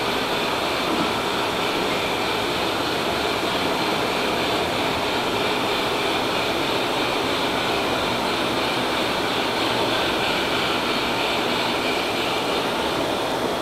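Steady, even rushing noise that holds at the same level throughout, with no distinct events.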